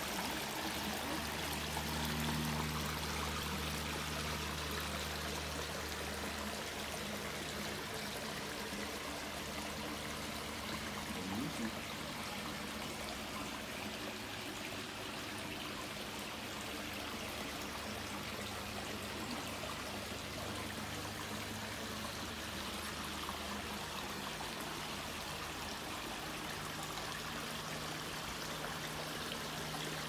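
Small backyard waterfall spilling over boulders into a rocky stream bed, a steady rush and trickle of water, with a low steady hum underneath.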